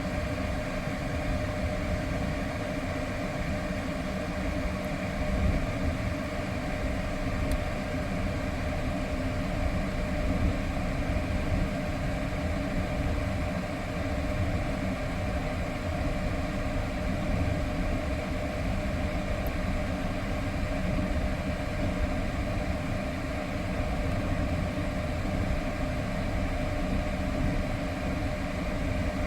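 Renault Samsung SM3 car idling with the air conditioning running during a refrigerant recharge: a steady hum with one constant tone over a low rumble.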